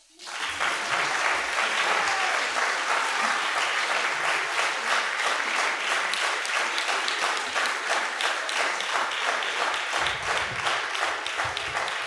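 Audience applauding in a concert hall, breaking out suddenly about half a second in and holding steady.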